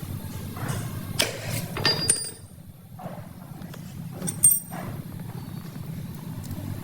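A few sharp metallic clinks of tools or parts, two of them with a brief high ringing, the loudest about four and a half seconds in, over a steady low hum.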